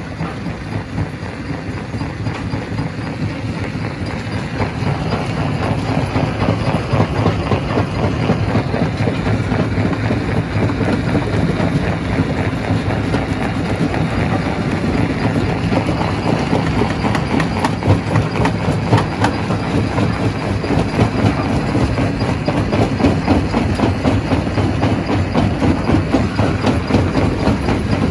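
Primary rock crusher running, with a continuous dense clatter of rocks knocking and grinding over a heavy low rumble; it builds up over the first several seconds and then keeps going steadily.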